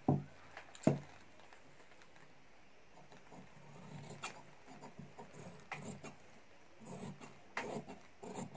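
Large tailor's shears cutting white pattern pieces on a cloth-covered table, heard as an irregular run of small snips and rustles from about three seconds in. Two sharper knocks come near the start.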